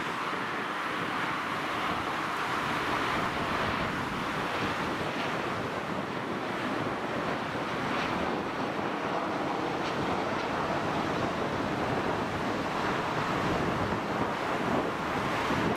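Steady rushing jet noise from a Lufthansa Embraer 190's two GE CF34-10E turbofans as the airliner passes low on final approach with its gear down, mixed with wind buffeting the microphone.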